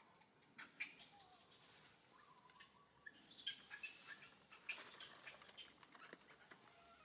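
Faint, scattered short high chirps and small clicks, irregular and with no steady sound beneath them.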